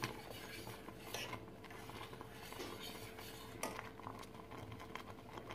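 Metal spoon stirring thick chocolate sauce in a stainless steel saucepan, giving faint scattered clinks and scrapes against the pan, over a faint steady hum.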